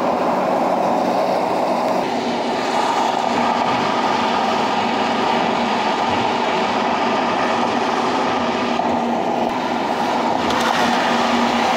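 Steady road and tyre noise of a car driving at freeway speed, heard inside the cabin, with a faint low hum underneath.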